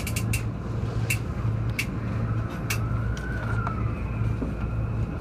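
Cab of a stationary E231-series electric train: a low equipment hum pulsing regularly about one and a half times a second, with several sharp clicks in the first two seconds.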